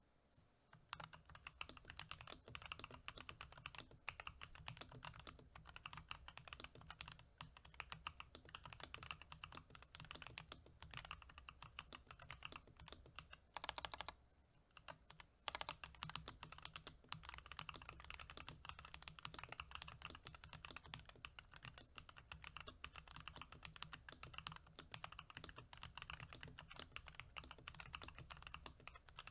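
Mechanical keyboard being typed on quickly and continuously, a dense run of key clicks starting about a second in, with a short pause just past the middle.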